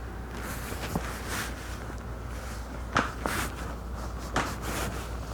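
Gentle chiropractic adjustment: a person shifting on a padded treatment table, with three short sharp clicks, the loudest about three seconds in.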